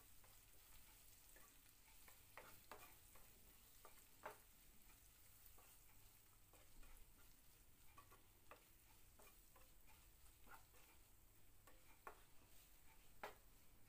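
Spatula faintly scraping and tapping against a nonstick pan while stirring sliced onion, capsicum and tomato with spice powders, in irregular strokes, over a faint hiss of frying.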